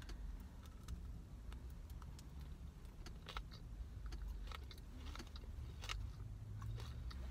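Chewing a bite of a peppermint brownie cake pop: scattered small clicks and soft crunches of the mouth at work, over a low steady rumble inside the car.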